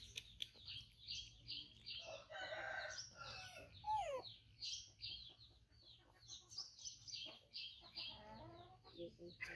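A rooster crowing about two seconds in, with small birds chirping rapidly and repeatedly throughout, and another lower call near the end.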